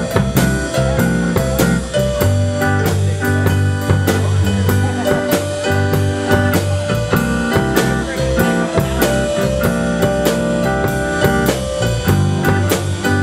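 Live blues-rock band playing: a drum kit keeps a steady beat under electric guitar and bass guitar, amplified through PA speakers.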